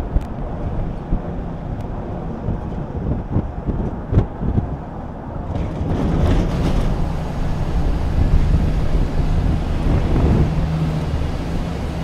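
Steady low rumble of a moving car, engine hum and tyre noise, with wind buffeting the microphone and a few sharp knocks in the first half.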